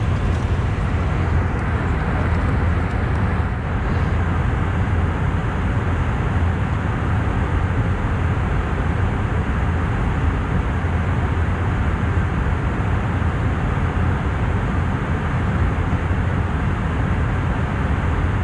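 Steady cabin noise of an Airbus A319-111 in flight: an even rush of airflow and engine drone, strongest in the deep bass, with no changes.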